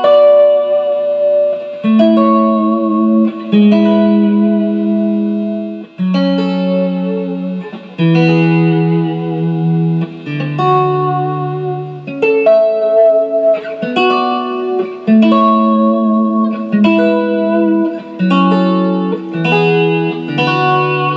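Electric guitar, the restored 1965 Fender Mustang, played through an amplifier: a progression of struck chords and notes that changes every second or two.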